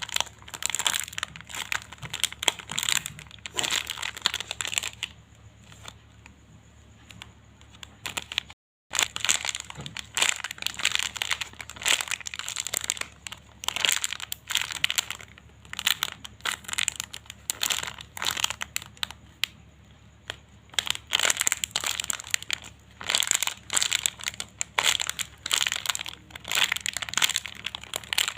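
Plastic packaging crinkling and crackling in irregular runs as squishy toys are handled and squeezed, with a quieter spell about five seconds in and a moment of silence just before nine seconds.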